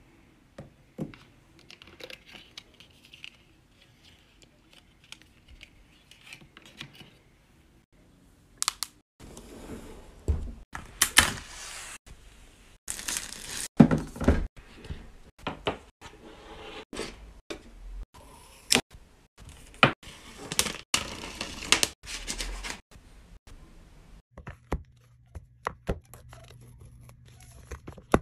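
Apple product boxes being unwrapped by hand: packaging tearing and crinkling, with sharp taps and knocks of boxes and devices handled on a table. Quiet clicks at first, then loud tearing and rustling from about a third of the way in.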